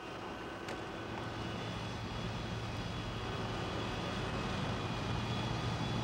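Airliner engines running on the apron: a steady low rumble with a high whine over it, growing gradually louder.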